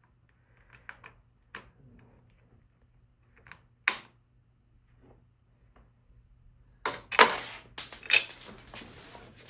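Light clicks of a bolt and washer being fumbled into place by hand, then about seven seconds in a burst of metallic clattering as small hardware is dropped and rattles.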